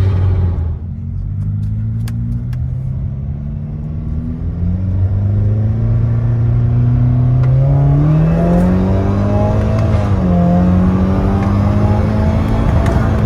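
Subaru WRX turbocharged flat-four under way with an open cold-air intake and muffler delete. The throttle comes off just after the start, then the engine pulls with a rising pitch that climbs faster about eight seconds in, dips briefly near ten seconds as if on a gear change, and then runs steady. A few sharp clicks come about two seconds in.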